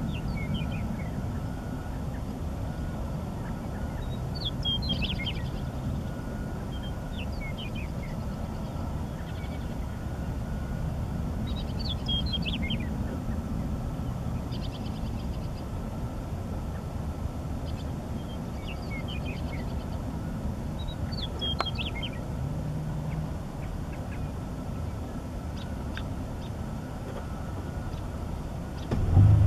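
A bird singing short phrases that fall in pitch, repeating every few seconds, over a steady low rumble.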